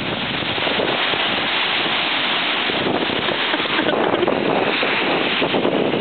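Strong wind buffeting the microphone in a steady rush, with small wind-driven waves breaking and washing up on a lake shore.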